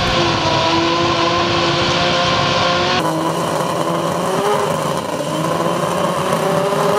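BMW 3 Series (E36) drag car's engine held at high, fairly steady revs during a burnout, the rear tyres spinning against the tarmac. The sound changes abruptly about three seconds in.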